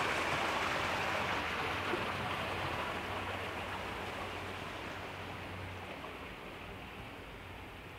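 Running water rushing steadily, fading gradually as it is left behind.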